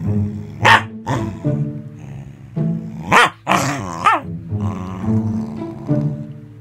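Corgi growling and grumbling while rolling on its back in play, with several louder yowls whose pitch bends up and down, about a second in and again between three and four seconds in.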